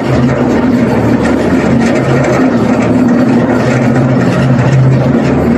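Miniature tourist train running along its track, heard on board, with its engine giving a steady low drone.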